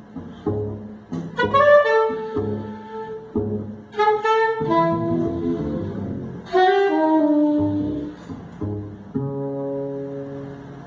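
Improvised jazz duo of a straight reed horn and double bass. The horn plays short phrases that bend in pitch over short low bass notes. A long held note near the end fades away.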